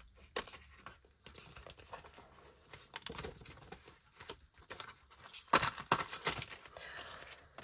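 Paper budget envelopes and banknotes rustling and crinkling as they are handled, with scattered small clicks and a short run of louder crinkles about two-thirds of the way through.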